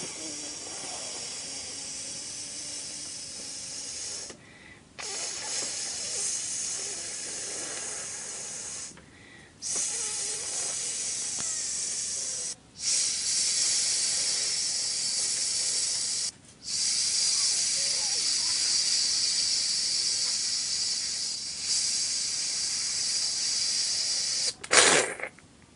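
A person making a long hissing 'psss' sound to mimic a doll peeing, in stretches of a few seconds broken by short pauses. A short, louder noise comes just before the end.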